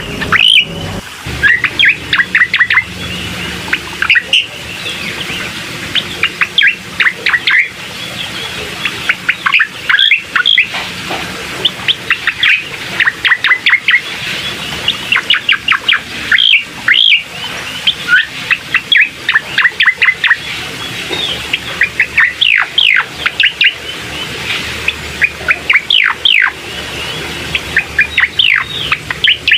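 Cucak koreng singing: a fast, nearly continuous run of short, sharp, falling whistled notes with brief pauses between phrases. It is a recorded bait song played to coax a silent cucak koreng into singing.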